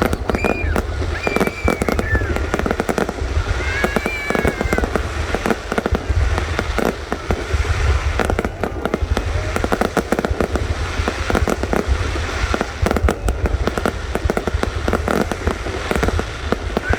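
Fireworks display: a dense, continuous barrage of bangs and crackling bursts.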